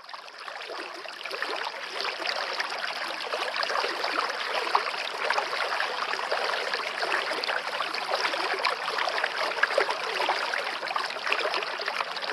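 A forest stream babbling and splashing steadily, fading in over the first couple of seconds.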